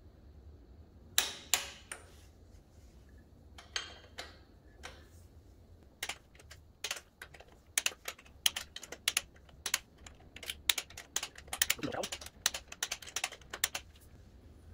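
Torque wrench clicking on the cylinder head bolts of a Briggs & Stratton riding-mower engine as they are tightened to 225 inch-pounds in a crisscross pattern. A few separate sharp clicks come first, then quick runs of clicks from about six seconds in.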